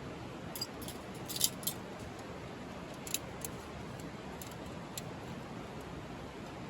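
Wood fire burning in a firewood grill: a steady low rush with a handful of sharp, high pops and snaps, clustered in the first half.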